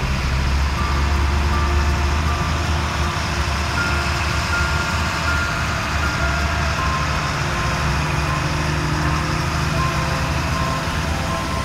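Emergency vehicles, a ladder fire truck among them, rolling slowly past: a steady low engine rumble, with short high beeps sounding on and off.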